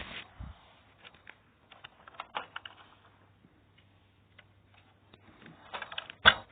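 Scattered light clicks and knocks at an irregular pace, with one loud knock near the end.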